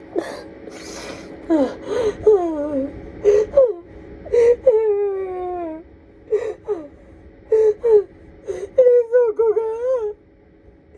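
An adult woman sobbing hard: drawn-out wailing cries that slide down in pitch, broken by sharp gasping breaths.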